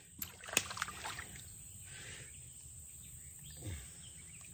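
Faint splashes and clicks in shallow water as a freshly hooked bowfin is handled and lands, most of them in the first second or so. A brief low sound falls in pitch a little over three and a half seconds in.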